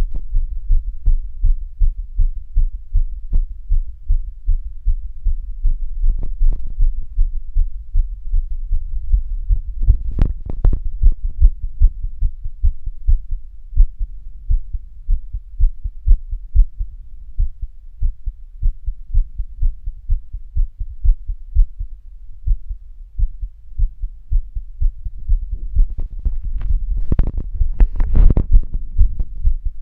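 A person's heartbeat, recorded close up, beating quickly and regularly with about two deep thumps a second, raised by physical activity. Brief scratchy rubbing noises come in about ten seconds in and again near the end.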